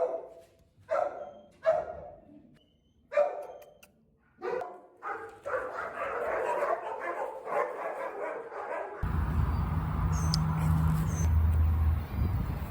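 Dog barking: loud single barks a second or so apart, then a faster run of barks overlapping one another. About nine seconds in, the barking cuts off abruptly and a steady low rumble takes over.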